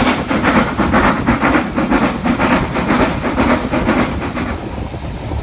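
Steam locomotive exhaust beats, a fast even chuffing of about four or five beats a second, heard from a carriage window with the train running on the rails; the beats fade away near the end.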